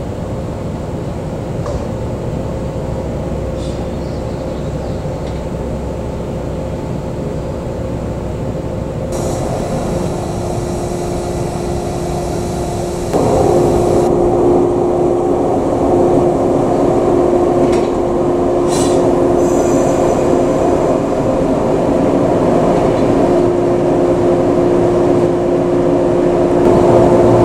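Shinano Railway 115 series three-car electric train moving slowly along a station platform, with a steady hum of several tones from the train. The sound steps up sharply about halfway through.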